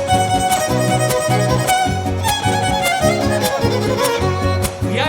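Son huasteco (huapango) played live: a violin melody over steady strummed rhythm from the jarana and huapanguera. A singer comes in with a rising falsetto right at the end.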